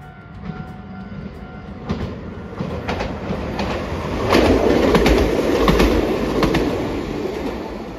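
Hiroden Green Mover 5000-series articulated low-floor tram (Siemens Combino) passing close by on ballasted track, its wheels clicking over the rail joints. The running noise swells to its loudest about halfway through and eases off near the end.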